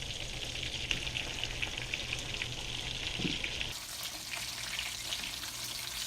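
Flour-coated trout sizzling as it pan-fries in butter: a steady, dense crackle of spitting fat.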